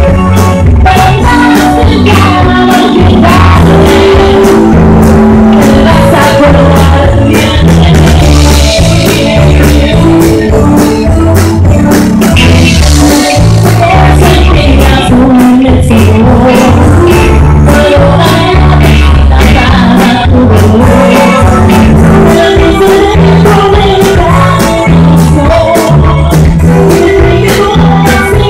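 Live band playing loud music with singing, electric guitar and keyboard, over a steady beat.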